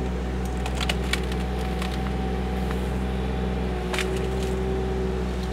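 KYMRON ZX22D mini excavator's diesel engine running steadily under load while it pushes on a tree, the wood cracking and splintering in short sharp snaps: a few in the first second and a stronger one about four seconds in. A steady whine comes in about four seconds in.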